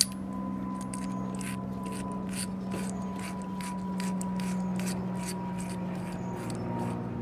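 Brass propane-hose fitting being turned by hand into a furnace burner housing, giving a run of small metallic clicks and scrapes, about three or four a second, over a steady low hum.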